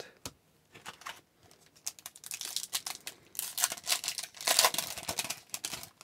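Upper Deck hockey card pack wrapper being crinkled and torn open: scattered crackles at first, then a dense run of rustling and crackling in the second half.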